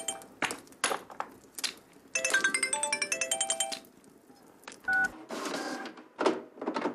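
A phone's melodic ringtone: a quick run of bright, bell-like notes that plays twice with a pause between. A short beep sounds about five seconds in.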